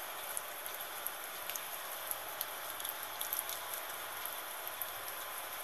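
Gentle rain falling steadily: an even hiss dotted with many small, sharp raindrop ticks.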